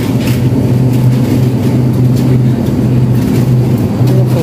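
Steady low hum with an even rushing noise over it, the constant drone of a supermarket's open refrigerated display cases and ventilation.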